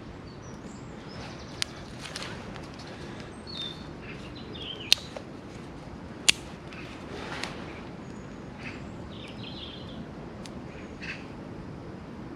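Small birds chirping on and off over a steady woodland background, broken by three sharp cracks: one early, then two more about a second and a half apart in the middle.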